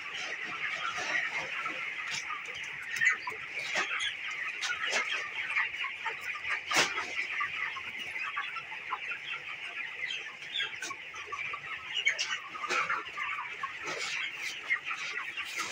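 A flock of broiler chicks peeping continuously, many small overlapping calls, with a few sharp clicks now and then.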